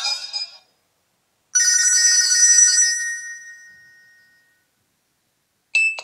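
Nokia 3720c phone speaker playing its built-in ringtones. One tone ends right at the start. A short ringing tone sounds about a second and a half in and fades away over about three seconds, and the next ringtone starts just before the end.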